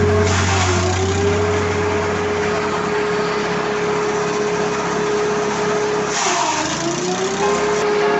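Motorised grass chopper running steadily with a dense whirring noise. Its running pitch sags briefly twice, just under a second in and about six seconds in, and recovers each time.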